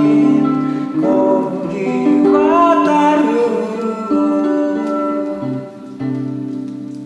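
Acoustic guitar played in a gentle song, with a man's voice singing a melody over it through the middle; the guitar dips in loudness near the end, then settles on a held chord.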